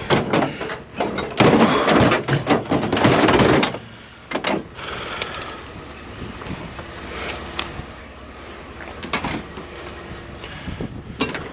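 Scrap items being handled and shifted: a rattling, scraping clatter for about four seconds, then a few separate knocks.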